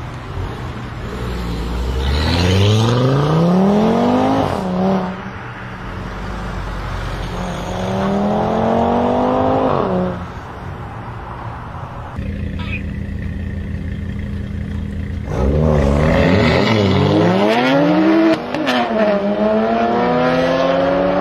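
Audi TT RS's turbocharged 2.5-litre five-cylinder engine accelerating hard several times, each pull rising in pitch and dropping at an upshift. In the last part two cars accelerate together, their engine notes overlapping.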